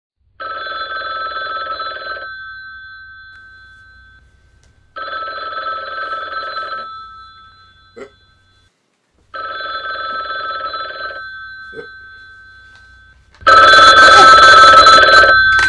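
Old black rotary-dial desk telephone's bell ringing: four rings of about two seconds each, roughly every four and a half seconds, the last one the loudest.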